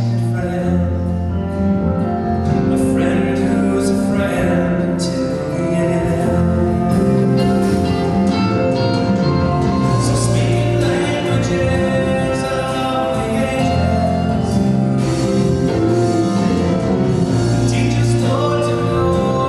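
Music with a singing voice over sustained, slowly changing chords.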